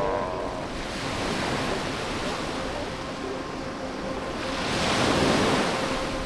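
Surf washing onto a beach, with one wave swelling louder about five seconds in.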